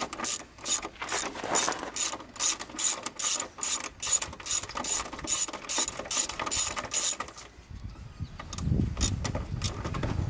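Socket ratchet on an extension clicking in steady, even swings, about two to three clicks a second, as a headlight mounting bolt is backed out. The clicking stops about seven seconds in.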